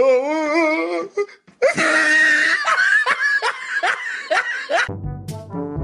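A wavering drawn-out tone for about a second, then a burst of high-pitched laughter lasting about three seconds. Brass music comes in near the end.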